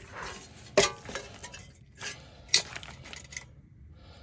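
Sharp metallic clinks and knocks, two louder ones about a second in and again past halfway, as the old induced draft motor's seized blower wheel is handled.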